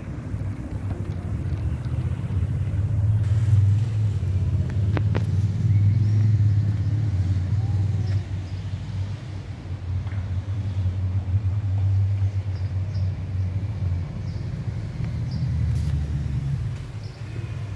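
Wind buffeting the microphone: a low, uneven rumble that swells and fades, with a few faint, short high chirps above it.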